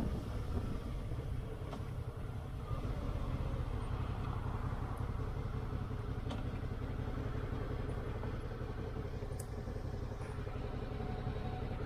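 A motorcycle engine running steadily, giving a constant low hum with no change in revs.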